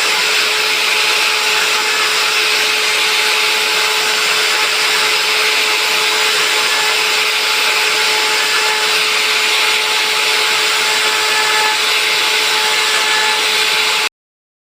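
Handheld CNC router running, a steady motor whine with hissing noise over it that does not change. It cuts off suddenly near the end.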